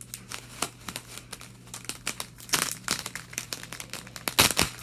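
Crinkling and crackling of a hockey card pack's wrapper being handled and torn open, a run of quick crackles with louder bursts about halfway through and near the end.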